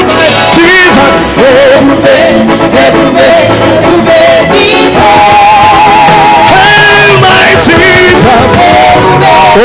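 Live gospel praise song: a singer holds long, wavering notes over loud band accompaniment.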